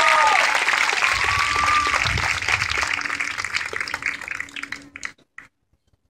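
A marching band's final held chord cuts off just after the start. Crowd applause and cheering from the stands follow, fade, and cut off suddenly about five seconds in.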